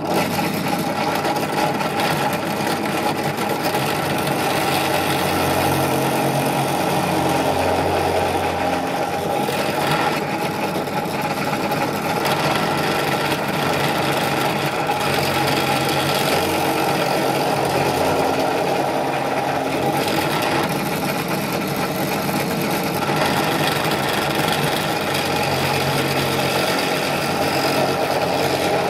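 Benchtop drill press running steadily while its bit bores angled holes into a spalted birch workpiece.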